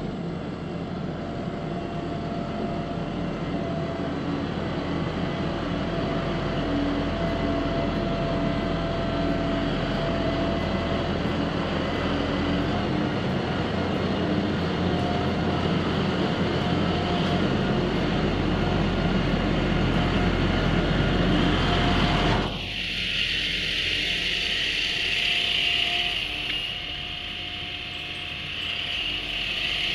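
John Deere 5045E utility tractor's three-cylinder diesel engine running as the tractor drives toward the camera, getting louder as it nears. About 22 seconds in, the low engine sound drops away sharply and a hiss takes over.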